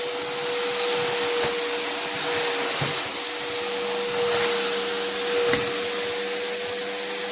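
Vacuum cleaner running steadily, a constant motor whine over a rushing airy hiss.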